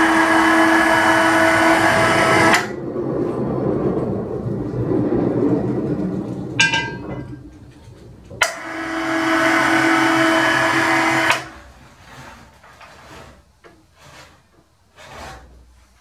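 Electric hoist motor running as it lifts a heavy lathe faceplate: a steady motor whine that cuts off suddenly, then runs again for about three seconds and stops. Rougher clattering between the two runs, and a few light knocks near the end.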